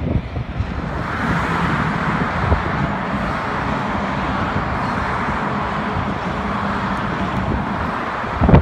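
CN diesel locomotives, a GP38-2 among them, running past with a steady low engine drone and a continuous hiss. A single sharp bump comes just before the end.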